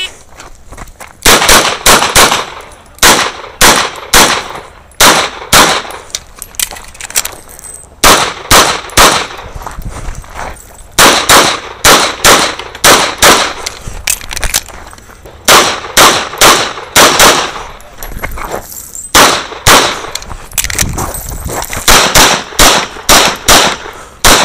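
Rapid-fire 9mm pistol shots from a CZ 75 SP01 AccuShadow during a timed practical shooting stage. The shots start about a second in and come in quick pairs and triplets, dozens in all, with short pauses between groups as targets are engaged in turn.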